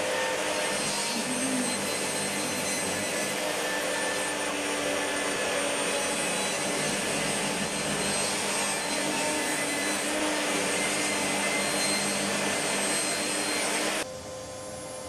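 Electric workshop machine running steadily with a dense noisy sound and a few steady tones, stopping abruptly near the end and leaving a quieter hum.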